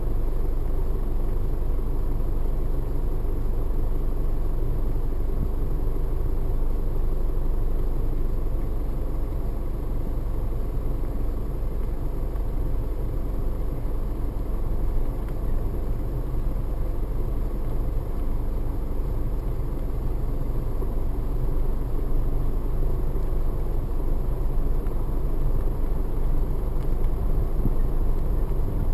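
Car driving at a steady speed on a paved road, heard from inside the cabin: a steady low rumble of engine and tyre noise.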